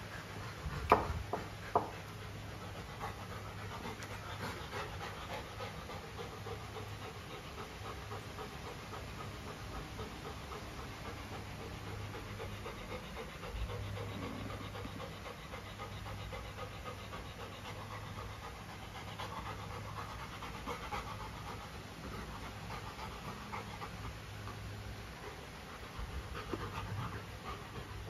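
A golden retriever panting steadily and rapidly, with two sharp knocks about a second in.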